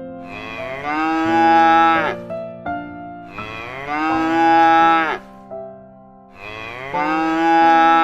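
Cows mooing: three long moos about three seconds apart, each rising in pitch and falling away at the end, over soft background music.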